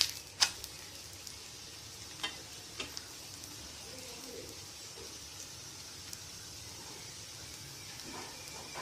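Sago adai frying in ghee on a tawa, with a faint steady sizzle. It opens with a couple of sharp clicks of the spatula as the adai is flipped onto its second side.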